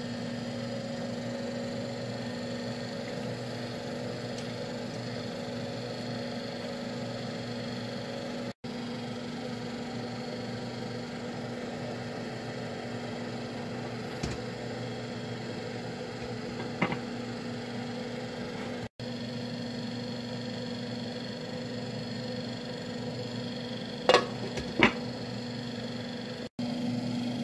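Steady electrical hum in a kitchen, with a few light knocks and clinks as a glass lid is handled over a cooking pot; the two loudest clinks come close together near the end.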